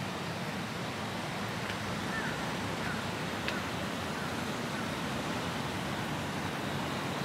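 Steady outdoor ambient noise, an even hiss of distant traffic and wind, with a few faint short chirps.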